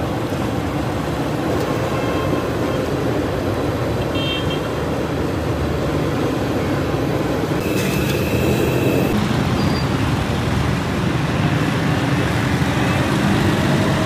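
Steady road traffic noise from a busy street, with a short higher-pitched sound, like a horn, about eight seconds in.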